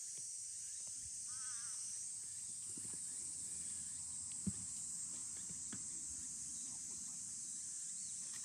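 Steady, high-pitched outdoor insect drone, with one short knock about four and a half seconds in.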